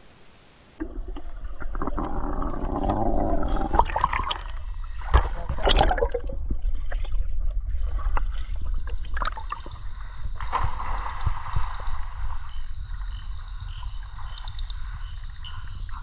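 Water splashing and sloshing in a swimming pool close to the microphone, starting suddenly, over a steady low rumble; the sharpest splashes come about four to six seconds in.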